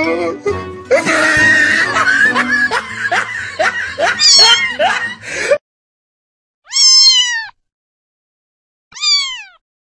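Background music for the first half, then after a sudden cut to silence a cat meows twice, two separate calls, each falling in pitch.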